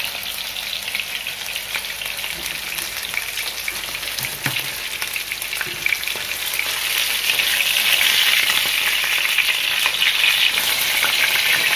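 Thick minced-meat cutlets frying in hot vegetable oil in a pan: a steady sizzle that grows louder about seven seconds in.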